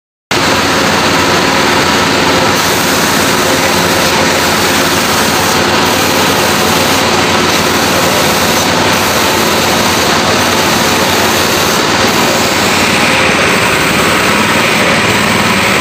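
Steady hiss of a compressed-air paint spray gun, with the motor of the air compressor feeding it running underneath.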